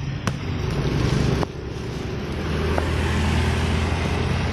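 Motorcycle engine running as it rides along a wet road, with tyre and wind hiss, getting louder about halfway through as it picks up speed. A couple of sharp clicks in the first second and a half.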